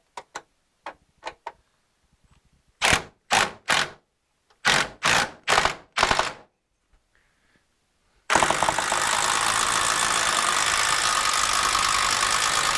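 Power drill driving screws: a few light clicks, then several short bursts of the motor, then one long steady run of about five seconds as a screw is driven home.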